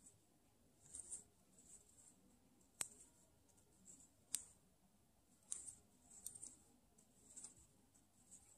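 Faint rustling of yarn drawn through loops by a crochet hook as a row of double crochet stitches is worked, a soft rustle every second or so. Two sharp light clicks stand out about three and four and a half seconds in.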